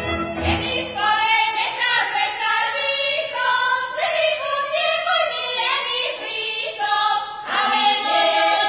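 Women's folk singing group singing a Šariš folk song. The orchestra's accompaniment falls away about a second in, and the women's voices carry on with little or no backing.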